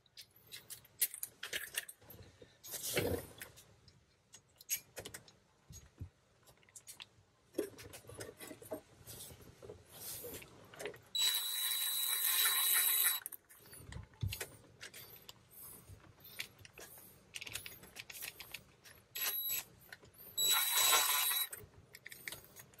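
Metal tools and bolts clinking, then a cordless driver running in short spells to zip down the Torx bolts of a Ford M5OD transmission's shifter cover: one run of about two seconds about halfway through, and two shorter runs near the end.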